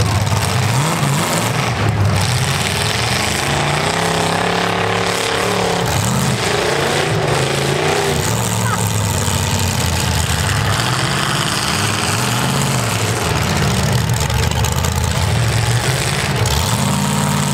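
Several demolition-derby V8 engines running together, revving up and down as the cars push against one another.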